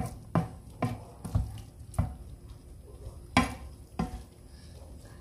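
Wooden spatula stirring diced chicken and vegetables in sauce in a nonstick frying pan, knocking and scraping against the pan about twice a second, then more sparsely after about two seconds.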